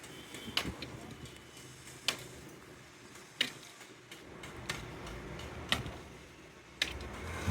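Sharp, irregular knocks or clicks, about six of them spaced a second or so apart, over a faint steady background.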